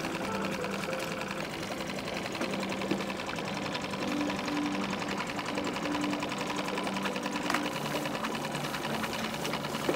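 Mercury 4 hp four-stroke outboard motor idling in neutral, a steady, fast and even clatter.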